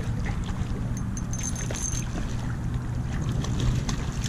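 Steady low wind rumble on the microphone, with small irregular splashes from a hooked trout thrashing at the water's surface.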